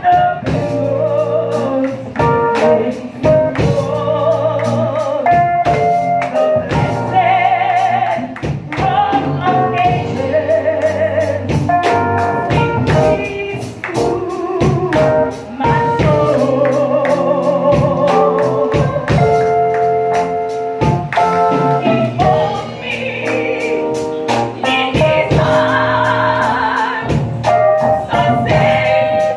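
A woman singing a gospel song into a handheld microphone, holding long notes with a wide vibrato.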